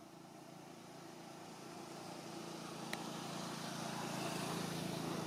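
Low engine hum of a motor vehicle, growing steadily louder as it approaches, with a single sharp click about three seconds in.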